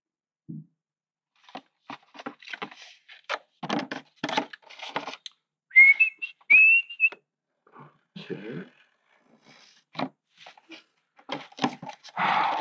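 Light clicks and crinkling of plastic and tape being handled. About six seconds in come two short whistled notes, each rising slightly in pitch, which are the loudest sound.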